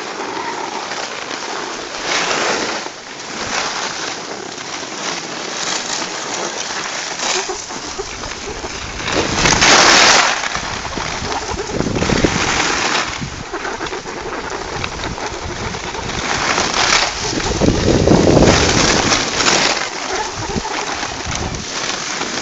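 Skis hissing and scraping over packed snow while skiing downhill, in swells that peak about halfway through and again near the end, with wind rumbling on the microphone in the second half.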